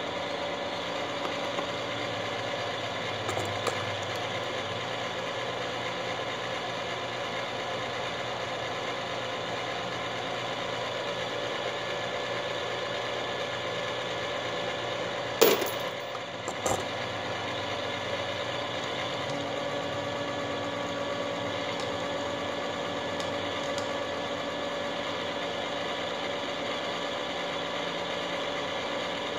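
Electric motor of a Frankford Arsenal Platinum Series case prep and trim center running steadily with an even hum while rifle brass is trimmed to length. A loud sharp click about halfway through, followed by a smaller one a second later.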